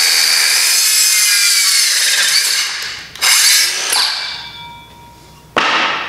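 Circular saw cutting through a timber strut, running steadily for about two and a half seconds, then winding down. It is briefly run up twice more, and each burst dies away as the blade slows.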